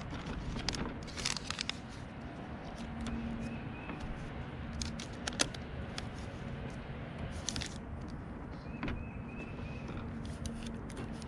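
Handling noise from a Winegard rooftop TV antenna's plastic base and mounting plate as it is fitted by hand: scattered clicks and knocks of plastic with short rustles.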